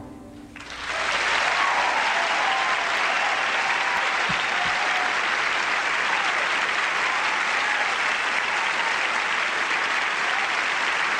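A large theatre audience applauding, swelling up within the first second after the music's last chord and then holding steady, with scattered cheers through it.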